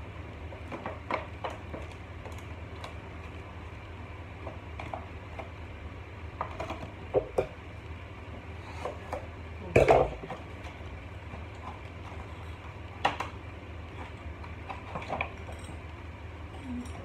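Scattered clicks, taps and crinkles of a clear plastic gift box and its tape being handled, peeled and cut open, with a sharper knock about ten seconds in. A low steady hum underneath.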